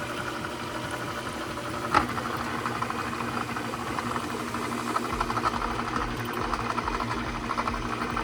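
A shop machine running steadily, with a fast, fine chatter over a hum. There is one sharp click about two seconds in, and a deeper rumble joins about five seconds in.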